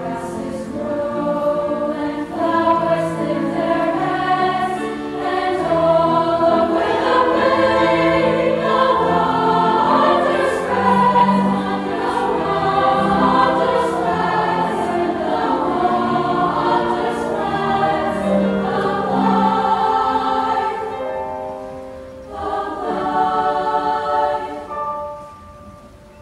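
Girls' choir singing a piece in several parts, with long held chords. It is loud through the middle, drops to a softer passage about 21 seconds in, swells briefly, then fades near the end.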